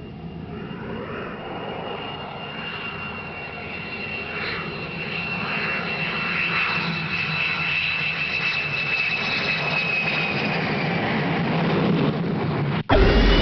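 Engine with a jet-like whine: a steady high tone over a rushing noise, growing gradually louder. Near the end it cuts off abruptly and a louder, deeper engine sound takes over.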